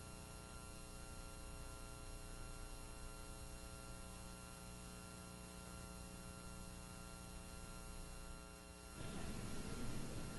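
Faint steady electrical mains hum, a stack of even buzzing tones. About nine seconds in it gives way to a rougher, slightly louder hiss.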